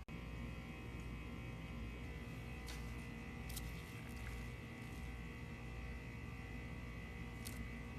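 A steady electrical hum with a few short, faint clicks.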